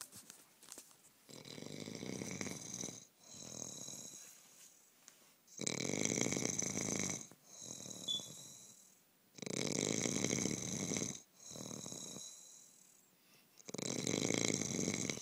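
A sleeping man snoring loudly: four snoring breaths about four seconds apart, each a loud snore followed by a quieter one.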